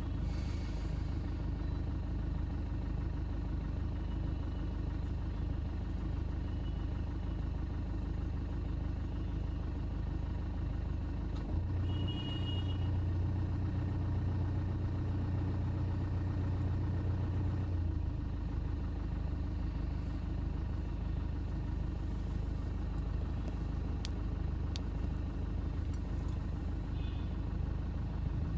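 Steady low rumble of a running vehicle engine, deepening and growing a little louder for several seconds in the middle.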